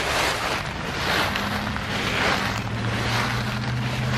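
Footsteps wading through deep dry fallen oak leaves, a crunching rustle that swells with each stride about once or twice a second. A low steady hum comes in about a second in under the rustling.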